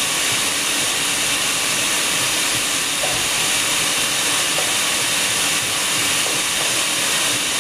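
A steady, even hiss at a constant level, strongest in the upper range, with no breaks or distinct knocks.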